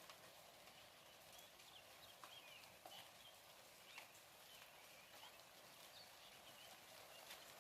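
Light rain falling, faint: a steady hiss with scattered drops ticking irregularly. A few short high chirps come through it now and then.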